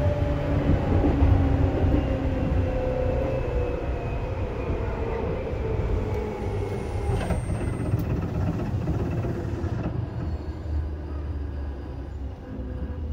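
Inside a Seibu 2000 series electric train's motor car, running rumble with traction motor and gear whine falling steadily in pitch as the train slows. There is a sharp click about seven seconds in, and the sound fades toward the end.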